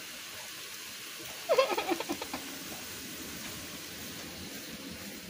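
Fried dumplings cooking in a pan of hot oil, a steady sizzle. About one and a half seconds in, a short voice-like call rises over it.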